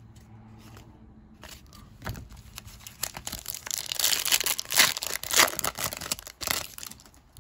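A foil trading-card pack being torn open and crinkled by hand. Quiet at first, then crackling from about two seconds in, loudest from about four to nearly seven seconds in.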